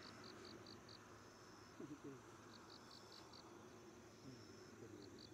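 Faint cricket chirping: short trains of about five quick pulses, repeating roughly every two and a half seconds, with a faint steady high trill between them.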